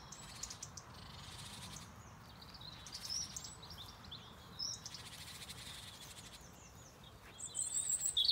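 Small birds giving short, high chirping calls at intervals, more often and louder near the end: alarm calls warning that cats are about.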